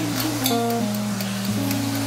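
Background music: a melody of held notes moving step by step over long bass notes.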